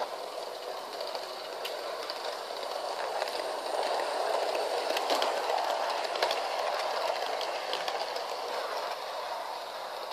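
Model 060 EA electric locomotive and passenger coaches running on sectional track: a steady whirr of motor and wheels with a few light clicks. It grows louder as the train passes close about halfway through.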